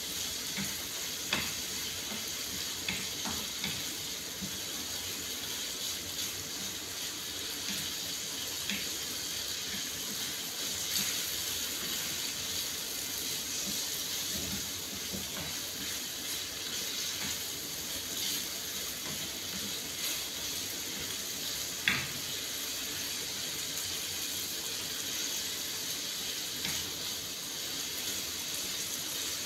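Chicken breast pieces sizzling steadily in a frying pan, with a few light knocks and scrapes of a spatula against the pan; the sharpest knock comes about three-quarters of the way through.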